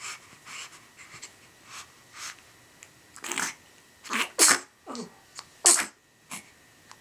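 A 13-day-old baby sneezing: soft little noises, then a run of sudden sneezes past the middle, the two loudest a little over a second apart.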